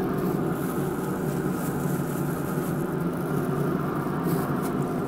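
Pit Boss pellet smoker running with a steady mechanical hum from its fan, heard close with the lid open. There are a few faint soft ticks as frog legs are set on the grate.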